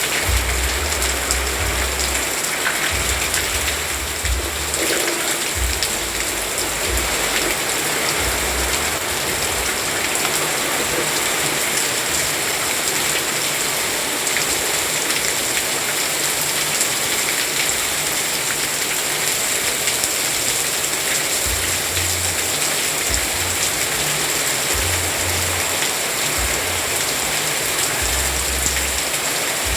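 Steady rain falling, a dense even hiss of drops with low rumbles coming and going underneath.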